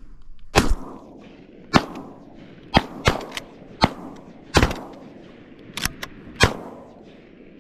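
A volley of about eight shotgun shots fired at geese by several hunters, irregularly spaced over about six seconds, each a sharp crack with a short echo.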